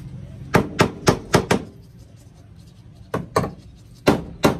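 Sharp knocks on a van's door hinge as it is worked back into line for the hinge pin: five quick knocks in about a second, then four more a couple of seconds later.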